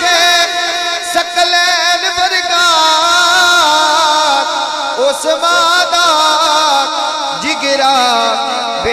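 A man singing a Punjabi Sufi devotional kalaam in long, wavering held notes that slide and ornament up and down without breaking into words.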